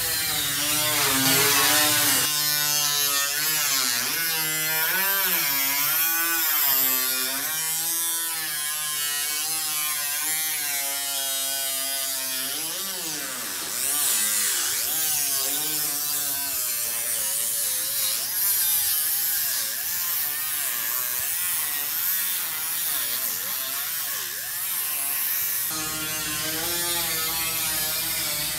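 Air-powered grinder with a small abrasive disc whining on sheet metal, its pitch wavering up and down as it bears on and eases off the metal.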